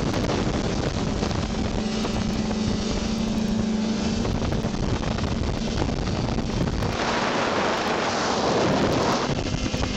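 Snowmobile engine running at a steady note, with wind buffeting the microphone. About seven seconds in, a louder rushing hiss rises over the engine for a couple of seconds.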